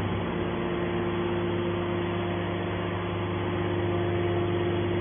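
Hydraulic power unit of a light metal scrap baler running steadily, a constant hum with a steady whine, as its cylinders raise the press lid.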